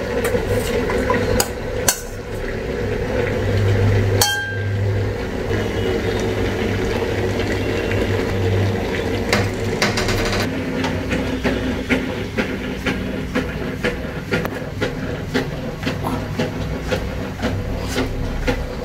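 A metal spoon scraping and knocking against a steel bowl and an aluminium cooking pot as fried potato pieces are scraped into the pot, with repeated small clinks and knocks over a steady low hum.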